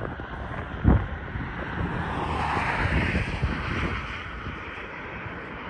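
Wind buffeting the microphone, with one sharp bump about a second in, while a distant rushing noise swells and fades in the middle, as of a vehicle passing.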